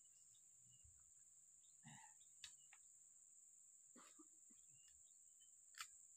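Near silence: a steady high-pitched insect drone, with faint bird chirps and two faint sharp clicks, one about two and a half seconds in and a louder one near the end.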